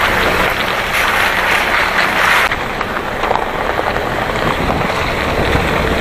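Hyundai Porter 4WD truck's tyres rolling over a wet gravel road: a steady hiss of tyre noise and water spray, with the truck's engine running underneath. About two and a half seconds in, the upper part of the hiss drops away.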